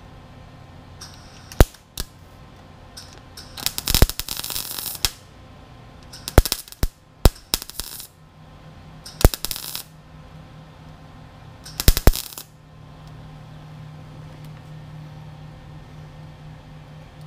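MIG welder tacking a steel patch panel into a rusted windshield A-pillar and cowl: about eight separate bursts of arc crackle, most under a second and one of about a second and a half, with short pauses between them. A steady low hum sets in about two thirds of the way through.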